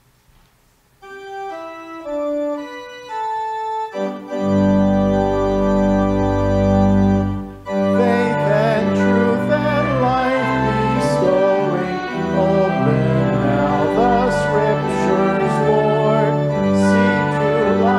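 Church organ playing a hymn introduction: a single line of notes, then full chords with deep bass from about four seconds in. From about eight seconds in, voices join, singing the hymn with the organ.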